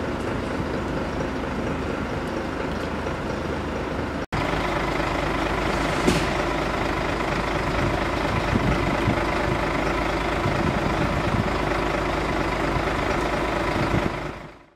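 Diesel engines of parked fire engines idling with a steady hum. The sound drops out for an instant about four seconds in, there is a short sharp knock about six seconds in, and it fades out near the end.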